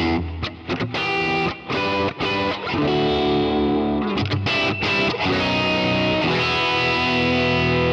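Semi-hollow electric guitar played through a Kemper Profiler's Deluxe Reverb profile with an AC30 top-boost tone stack, its cut, treble and bass turned up. Short choppy strummed chords with brief gaps give way about three seconds in to ringing chords that change a few times, while the bass and treble knobs are being turned.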